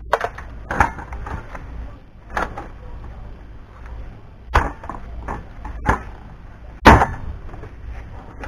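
Metal parts and tools knocked and set down on a cluttered workbench while a Kenwood power amplifier is stripped: about six sharp clanks and knocks spaced a second or two apart, the loudest near the end.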